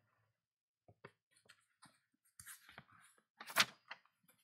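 Faint handling sounds of a book's pages: soft rustling and light taps, with one sharper tap about three and a half seconds in.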